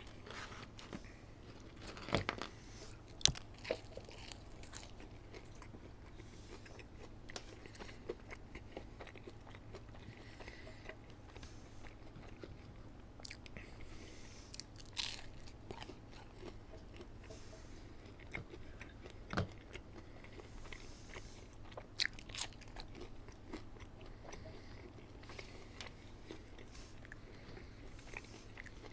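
A person chewing and biting McDonald's food, with scattered crunchy bites and a few sharp clicks.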